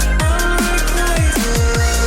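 Electronic dance music with a fast beat, heavy bass and repeated falling bass sweeps about twice a second.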